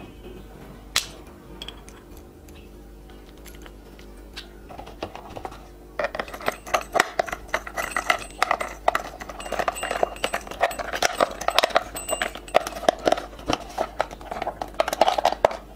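Screwdriver driving small screws into a hard plastic toy bus body, with clicks and scraping of the plastic parts being handled. Only a few isolated clicks at first, then from about six seconds in a dense, busy run of clicking and scraping.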